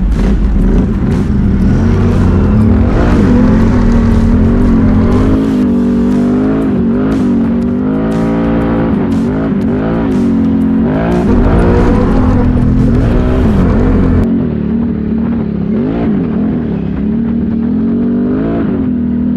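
Can-Am Renegade XMR 1000R's Rotax V-twin, breathing through an SLG Sniper slip-on exhaust, running under way on a trail with the revs repeatedly rising and falling as the throttle is worked. Wind buffets the microphone throughout.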